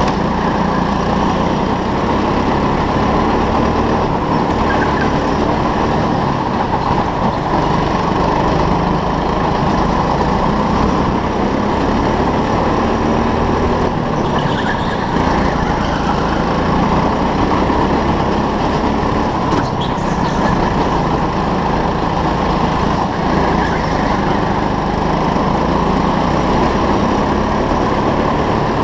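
Onboard sound of a go-kart at racing speed: its motor running steadily with tyre and chassis noise, and a few faint brief squeaks through the corners.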